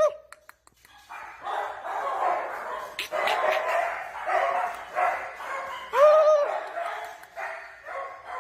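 Dogs barking, several overlapping barks in a steady run, with one longer drawn-out yelp about six seconds in.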